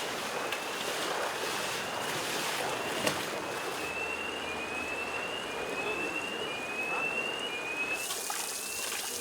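Rushing floodwater, a steady noisy rush, with a faint high rising tone repeating about once a second.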